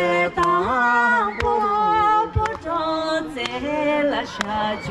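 Singing with music: a melody of long held notes that steps from pitch to pitch, with a lower line held steady beneath it.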